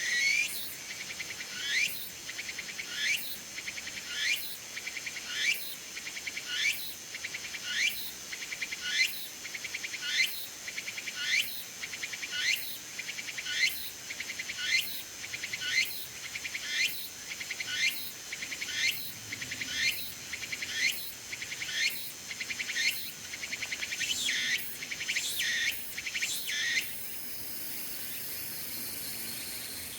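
A tsukutsuku-boshi cicada (Meimuna opalifera) singing: a rising call repeated a little over once a second over a steady high drone. Near the end the calls come faster and then break into a steady high buzz, the close of its song phrase.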